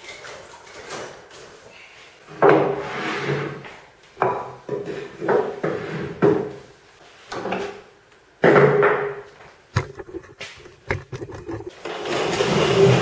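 Wooden workshop pieces being handled and shifted: a string of knocks, thuds and rubbing of plywood and timber, about half a dozen separate bouts, with a longer, louder stretch of handling noise near the end.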